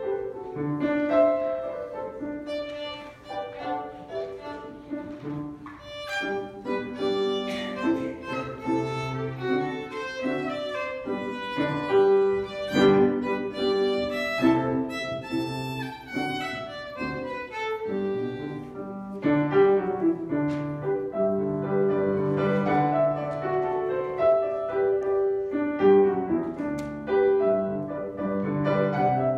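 Live violin with piano accompaniment, a solo piece played with bowed melody over piano chords. Near the end the violin stops and the piano plays on alone.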